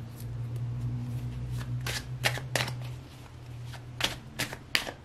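A deck of tarot cards being shuffled by hand, with a run of sharp card snaps from about a second and a half in.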